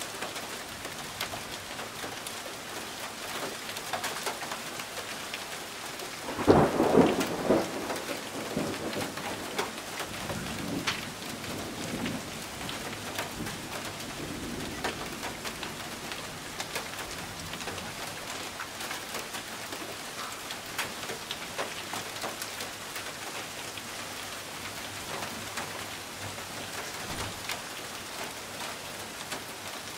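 Thunderstorm with heavy rain and hail falling steadily, many sharp ticks of hailstones striking. A loud thunderclap comes about six seconds in and rumbles on for several seconds before fading.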